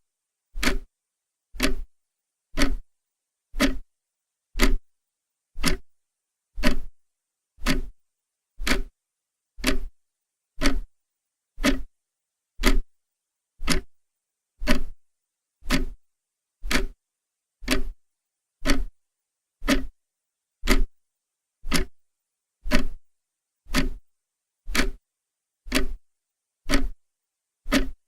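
Clock ticking steadily, about one sharp tick a second, with silence between ticks.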